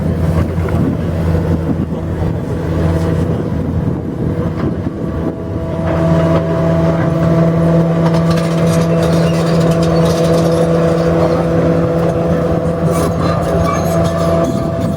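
Heavy diesel engine of demolition machinery running steadily, getting louder and working harder about six seconds in, with a few knocks near the end.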